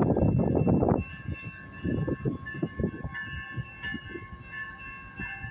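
Wind buffeting the microphone in irregular gusts, loudest in the first second, over a BNSF diesel locomotive running in the distance with a steady high-pitched whine.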